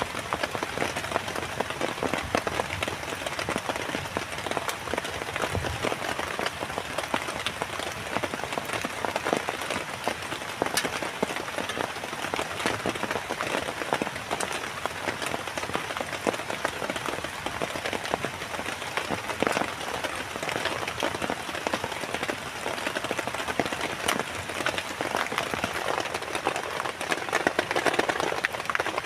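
Heavy rain falling steadily, with a dense spatter of individual drop hits.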